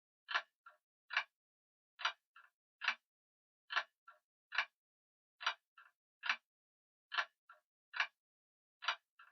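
Grandfather clock ticking in a steady, slow tick-tock, a little faster than one beat a second. Every other beat is followed by a fainter extra click, and there is silence between beats.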